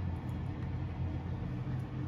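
Aluminium messtin of instant ramen simmering on a burner: a steady low rumble.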